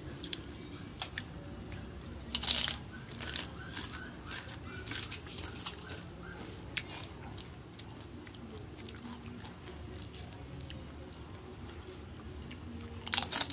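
People crunching and chewing tortilla chips: scattered crisp crunches, one louder about two and a half seconds in.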